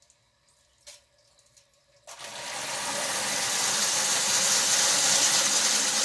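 Liberty Pumps SJ10 water-powered backup sump pump engaging: after a click about a second in, a loud rush of pressurised domestic water through the pump's jet starts suddenly about two seconds in and builds to a steady rush.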